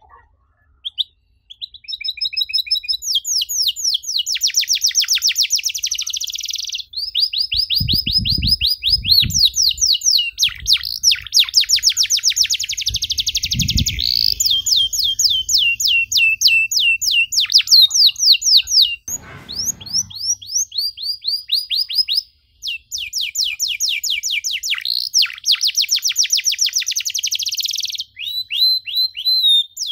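Domestic canary singing long, rapid trills: runs of fast repeated notes, each sweeping down in pitch, switching tempo and pitch every few seconds with brief pauses between phrases. A few low thumps sound under the song around the middle.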